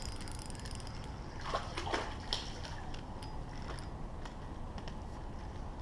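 Hooked crappie splashing at the water's surface as it is pulled out, a few quick splashes about a second and a half to two and a half seconds in.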